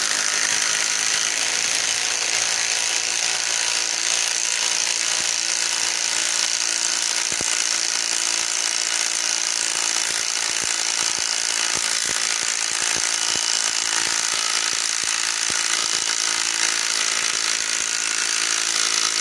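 Kobalt compact cordless impact wrench hammering steadily without a break, its rapid impacts driving a long lag screw into a wooden log.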